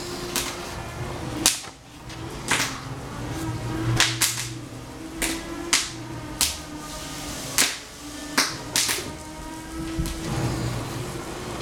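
Household noise: about a dozen sharp, irregular clacks and snaps, with faint steady music underneath.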